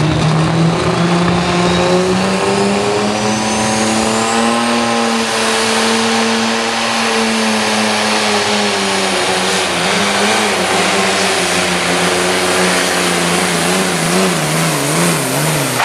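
A John Deere 4250 Pro Stock pulling tractor's turbocharged diesel engine runs flat out under load as it drags the weight-transfer sled. The engine note climbs over the first few seconds, with a high whistle rising with it. It then slowly sags and wavers near the end as the load builds.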